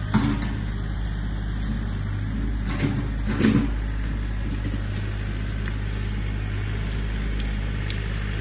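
John Deere 3025E compact tractor's three-cylinder diesel engine running steadily as it clears brush with its loader. A few short knocks and cracks come just after the start and again about three seconds in; the ones around three seconds are the loudest.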